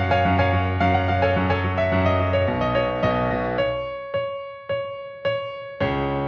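Background music led by piano or electric piano, a gentle melody that thins to a few sparse notes for a couple of seconds before the fuller accompaniment returns.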